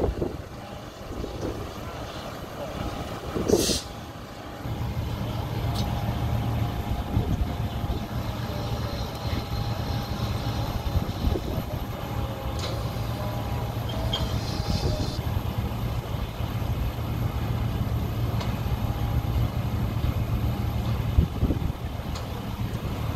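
Steady low engine rumble of ground-service vehicles and machinery on an airport apron, growing louder about five seconds in, with a short knock a few seconds in.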